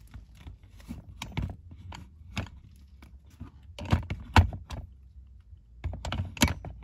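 Irregular hard plastic clicks and knocks of a holster's clip bumping and scraping against a plastic IWB holster mount, loudest about four seconds in. The holster isn't seating because it is being pushed straight down while its clip is canted.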